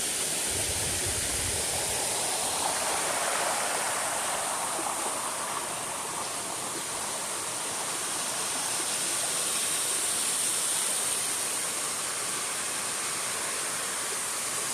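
River water rushing, a steady full hiss of flowing current.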